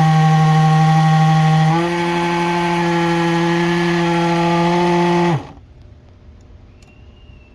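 Washing machine drain pump run as an AC generator, spinning with a loud steady buzzing hum. The hum steps slightly higher about two seconds in and cuts off about five seconds in.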